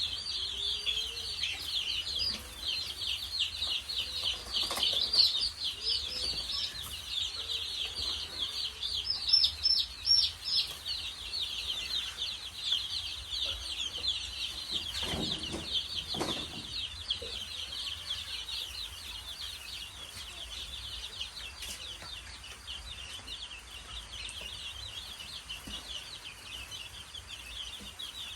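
A brood of chicks peeping continuously, many short high calls overlapping, a little louder in the first half. A lower clucking call sounds briefly about halfway through.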